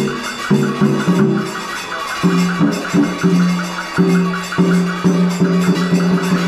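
Instrumental music: repeating phrases of held low notes over a steady, even rhythm.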